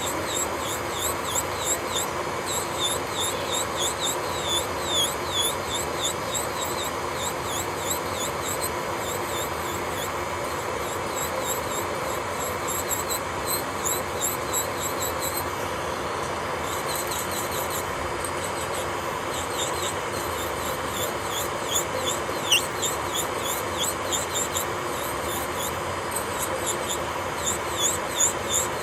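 Electric nail drill (e-file) running on a nail, taking off gel: a steady motor hum under a high squeaky whine that dips and recovers in quick, repeated strokes as the bit is pressed and lifted.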